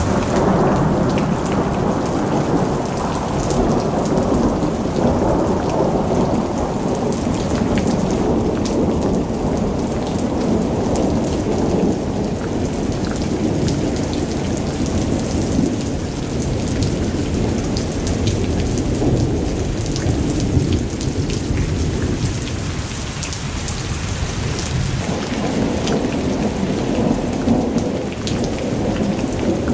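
Heavy rain falling steadily, with scattered drops striking nearby and a constant deep rumble underneath.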